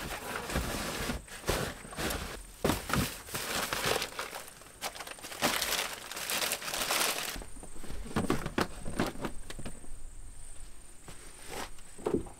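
Camping gear and soft bags being handled and packed into the back of a 4WD: repeated rustling and crinkling with light knocks, a long rustle about halfway through, and a thump near the end.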